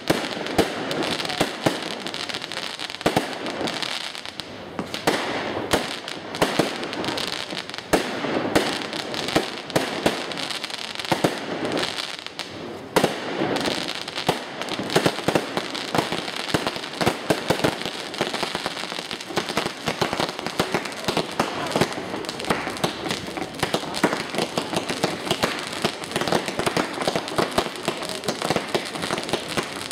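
Fireworks display: aerial shells launching and bursting in quick succession, many sharp bangs one after another over a continuous noisy background.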